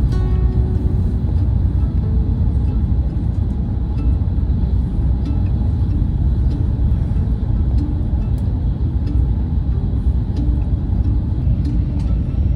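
Steady low rumble of a Shinkansen bullet train in motion, heard from inside the passenger cabin.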